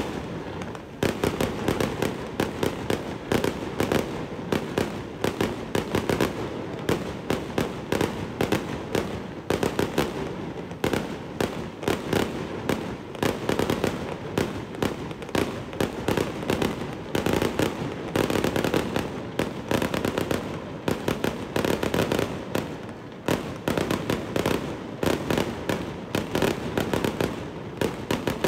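Fireworks going off at close range in a continuous barrage: a rapid string of sharp bangs, several a second, with no pause.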